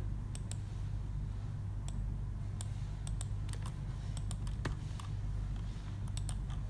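Computer mouse clicking: a dozen or so irregular single clicks over a steady low hum.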